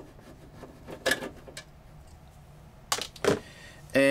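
Hands handling the plastic back cover of an AT&T UNIX PC 3B1 monitor housing: a few light knocks about a second in, then two sharper knocks around three seconds in as the loosened cover is gripped.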